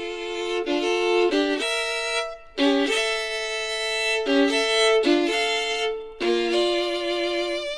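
Violin music played from a vinyl record through a phono preamp, with long held notes, breaking off briefly twice.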